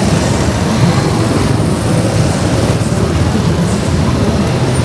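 Steady street traffic noise, with no single event standing out.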